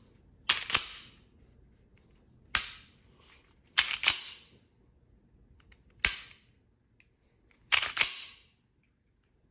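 Glock 19-pattern pistol on a Polymer80 frame being function-checked by hand: a single sharp click of the striker falling on a dry trigger pull, then a quick double clack of the slide being racked back and let go, three times over. The trigger now releases the striker after its trigger bar was polished where it catches.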